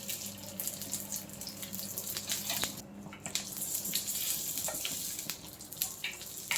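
Rice-paper spring roll sizzling and crackling as it fries in a hot pan, a steady hiss with many small crackles. A low hum underneath fades out about three seconds in.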